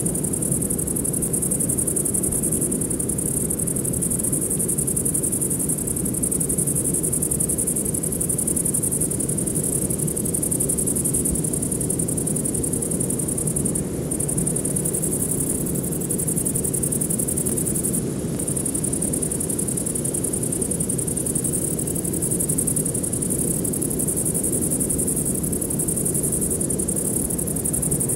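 Steady high-pitched insect chorus, a continuous chirring with a couple of brief dips, over a low, even rushing noise.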